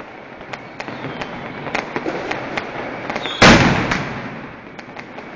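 New Year's fireworks and firecrackers going off in the street: a steady scatter of small sharp pops and crackles, then one loud bang about three and a half seconds in that fades out over a second or so.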